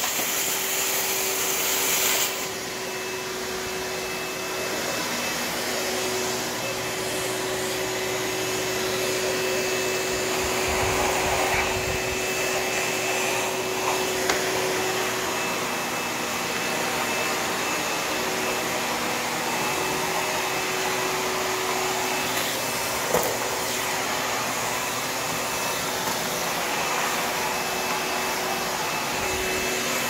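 Shop-Vac Contractor 92L500A 12-gallon, 5.5 HP wet/dry vacuum running steadily, sucking dirt and debris off a concrete floor through its wand, with a steady motor whine over the rush of air and an occasional sharp tick.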